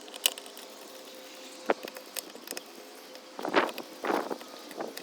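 Screwdriver working the screws of a small-engine carburetor back in: a few sharp metal clicks, then two short rattling scrapes about three and a half and four seconds in.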